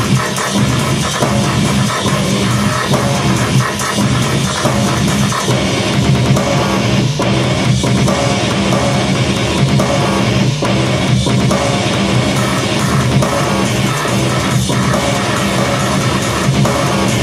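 Loud heavy, drum-driven music playing back from a Logic Pro session through studio speakers, with a pounding drum kit and sharp accents every few seconds.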